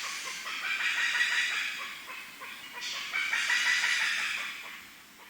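A flock of birds calling together in loud, dense swells that rise and fall every second or two, then fade out near the end.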